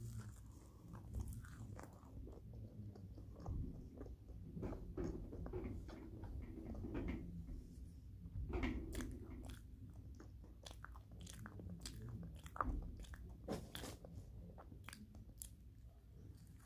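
A person biting into and chewing a marshmallow Peeps candy: soft, irregular wet smacks and clicks of the mouth.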